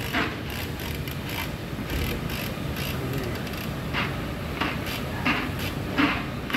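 Front suspension parts of a Suzuki Ertiga, the steering knuckle with its brake disc, knocking and clanking as two mechanics wrestle them onto the lower arm by hand: a few short metallic clanks, mostly in the second half, over steady workshop noise.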